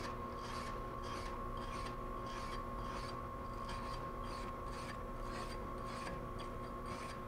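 Wire hand brush scrubbed back and forth across an aluminum plate, about two to three scratchy strokes a second, taking off the oxide layer before welding. A steady hum runs underneath.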